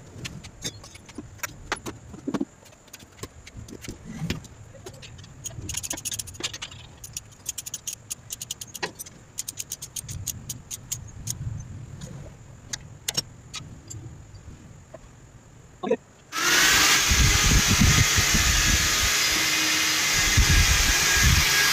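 Ratchet wrench clicking and metal tools clinking as the engine-mount bolts are tightened. About sixteen seconds in, an electric drill starts with a short rising whine and runs loudly and steadily, boring a hole through a bolt.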